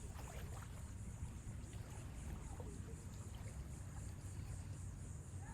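Steady low rumble of ocean waves, with a few faint bird chirps.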